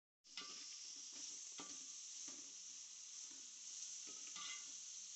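Sliced onions sizzling in hot coconut oil in a metal pan, stirred with a steel spoon whose strokes scrape the pan about once a second. The sound starts suddenly a moment in.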